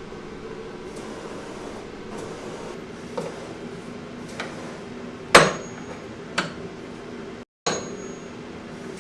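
Five sharp metal-on-metal hammer knocks about a second apart, the loudest about five seconds in, ringing briefly, over a steady low hum.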